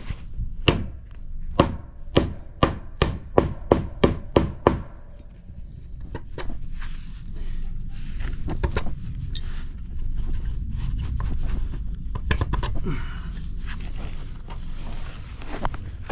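Hammer blows on wood, about ten sharp strikes in the first five seconds, quickening as they go, followed by softer scraping and handling noise with a few light knocks.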